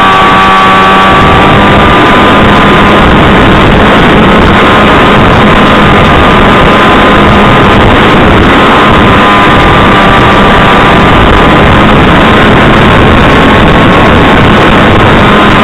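Loud, harsh in-flight sound of the SkySurfer 1400's electric motor and propeller, with a wavering whine that drifts slowly up and down in pitch over a dense rushing noise of wind, all muffled above a sharp cutoff.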